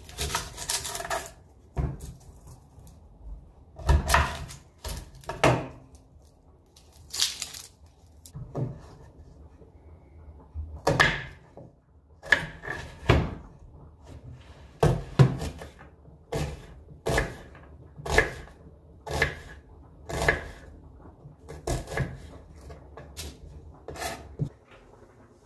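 Kitchen knife slicing an onion on a wooden cutting board: a series of sharp knocks of the blade striking the board. The knocks are irregular at first and settle to about one a second in the second half.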